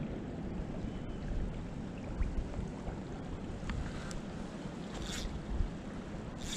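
Steady low rush of wind on the microphone mixed with the flowing creek, with a few short high hisses about four, five and six and a half seconds in.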